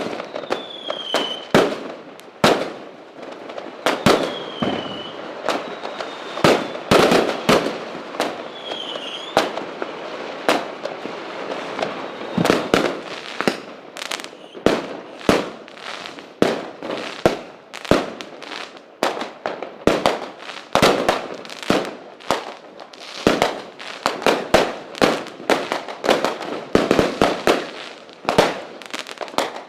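Fireworks going off: a continuous, irregular barrage of sharp bangs and crackling, growing denser in the second half to several bangs a second. A few short falling whistles sound in the first ten seconds.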